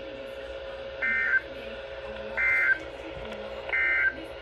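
Emergency Alert System end-of-message data bursts: three short, identical warbling digital tone bursts, about a second and a half apart, marking the close of the tornado warning broadcast. A faint steady hum runs underneath.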